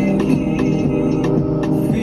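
Music: a track of sustained pitched instrumental notes with a light, regular beat.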